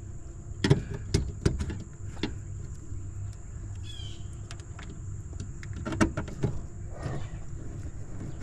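Screwdriver and hands working on parts in a package unit's sheet-metal control panel: a few sharp clicks and taps, the loudest about a second in and again about six seconds in, over a steady low hum.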